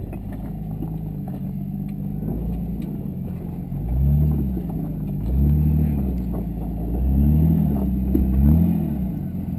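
Lifted Jeep Cherokee XJ's engine running at low revs while rock crawling, then given four short throttle blips from about four seconds in, each rising and falling in pitch as the Jeep climbs over the boulders.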